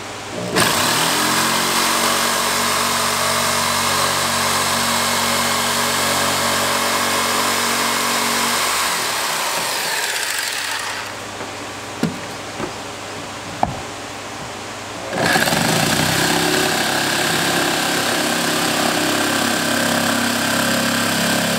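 Electric jigsaw running: the motor spins up about half a second in and runs steadily until about nine seconds. A few sharp clicks sound in the pause, then it runs again from about fifteen seconds. It is cutting a hole in the plastic deck of a kayak.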